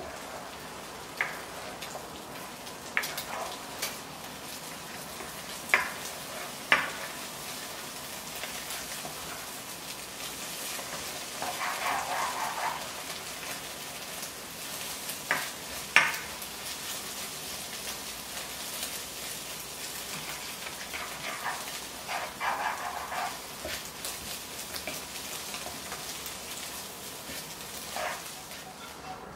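Beaten egg sizzling in a nonstick wok while it is stirred and scrambled with a spatula. Now and then the spatula taps sharply against the pan, with two longer stretches of scraping.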